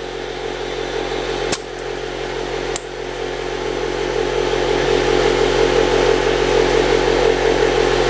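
Air compressor running steadily and growing slightly louder, with two sharp clicks about one and a half and about three seconds in.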